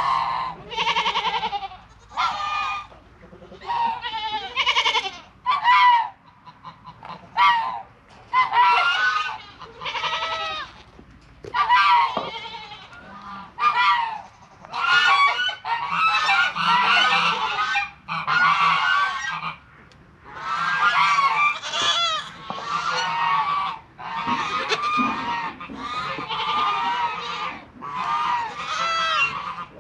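Several goats bleating over and over, about twenty loud, wavering calls nearly back to back, as the herd calls out for feed before feeding time.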